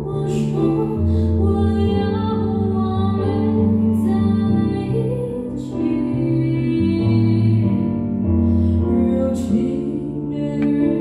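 A woman singing live into a microphone, accompanied by a Nord Electro 6D stage keyboard playing held chords over low bass notes that change every second or two.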